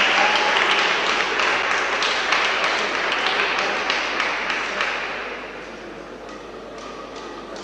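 Audience applauding, with dense clapping that dies away about five seconds in, leaving a few scattered light taps.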